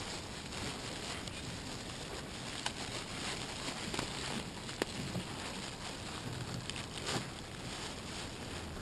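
Plastic Ziploc bag being handled and pulled open, crinkling, with a few sharp clicks, over a steady outdoor hiss.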